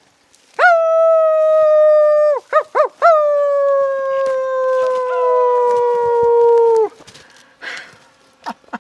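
A loud, wolf-like howl: a long held note, a quick wavering break, then a second, longer note that slides slowly down in pitch before cutting off.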